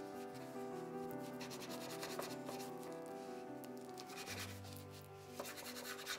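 A knife sawing lengthwise through a rolled log of soft filled dough, the blade rasping along a wooden cutting board in repeated faint scraping strokes, under soft background music.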